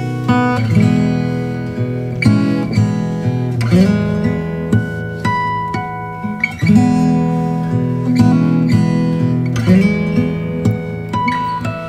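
Background music: acoustic guitar played with plucked and strummed chords in a steady rhythm.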